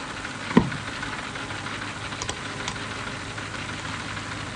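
A single thump about half a second in, against a steady low hum of background noise.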